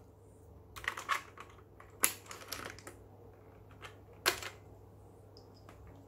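Sharp plastic clicks and clacks of a keycap puller gripping and prying a keycap off an HP GK100 mechanical keyboard: about six separate clicks, the loudest about two seconds in and just after four seconds in.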